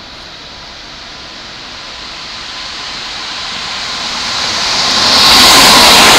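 Keikyu 600 series eight-car electric train approaching and passing close by: its running noise swells steadily and becomes loud about five seconds in as the cars go past, with a faint steady whine in it.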